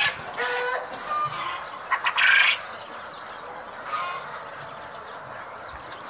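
Poultry calling in a crowded poultry house: a few short calls in the first half, the loudest about two seconds in, over the steady background din of the flock.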